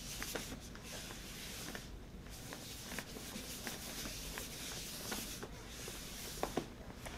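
Faint rubbing of gloved, lotioned hands massaging a training manikin's back in circular strokes, with a few faint ticks.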